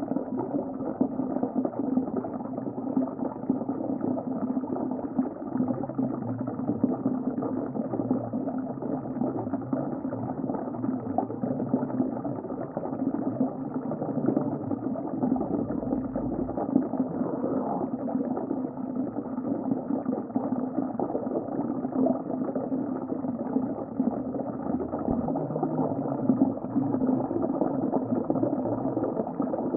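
Underwater ocean ambience: a steady, muffled watery rush with no clear individual events and nothing bright above the low and middle range.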